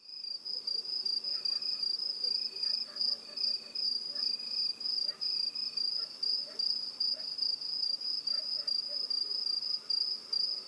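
Crickets chirping: one high, steady trill, with a lower chirp repeating in short pulses through the first half.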